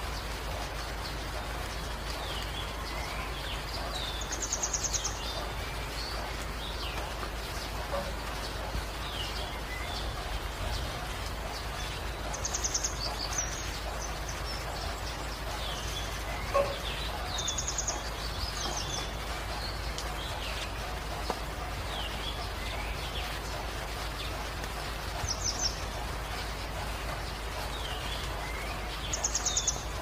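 Steady rain falling, with birds calling through it: a short high trill repeated several times, every few seconds, and scattered brief chirps. One sharp tick sounds about halfway through.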